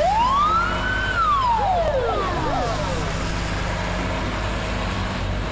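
A siren gives one wail, rising for about a second and then falling away over the next two seconds, over a low steady hum.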